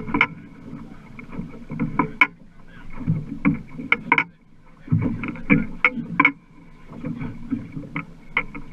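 A small fishing boat at sea, heard from on board: low rumbling water and hull noise that comes and goes, with many irregular sharp knocks and rattles from the boat's fittings.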